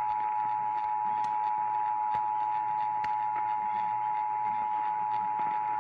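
Emergency Alert System attention signal: a steady, unbroken two-tone alert tone (853 and 960 Hz) heard over radio reception, with hiss and faint crackling clicks underneath.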